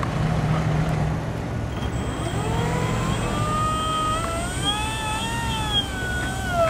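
Electric motor and propeller of a radio-controlled cargo plane spinning up about two seconds in: a whine that rises in pitch, then wavers up and down as the throttle is worked, with a thin high electronic whine alongside. Wind rumbles on the microphone throughout.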